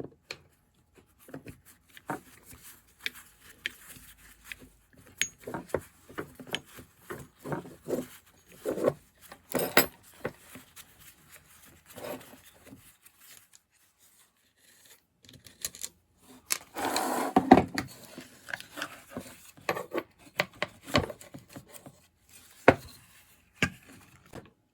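Chainsaw starter-assembly parts being handled and worked apart with hand tools: irregular clicks, knocks and scraping, with a louder stretch of rubbing and clatter about two-thirds of the way through.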